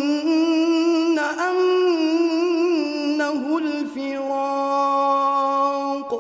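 A man chanting the Quran in melodic tajweed style, drawing out the words "annahu al-firaq" in long, held, ornamented notes with a wavering pitch. The phrase ends just before the close, leaving a short echo.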